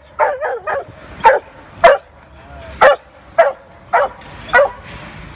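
A dog barking in short, sharp barks, about eight of them. A quick run of three comes in the first second, then single barks follow roughly every half second to second until just before the end.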